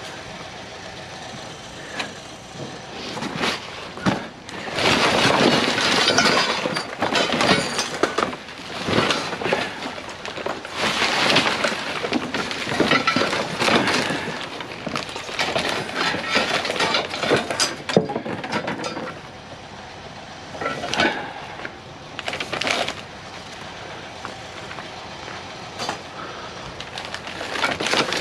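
Scrap wire, cable and debris being rummaged through by hand in a construction dumpster: pulled, dragged and dropped in irregular bursts of rustling and clatter, with a few sharp knocks.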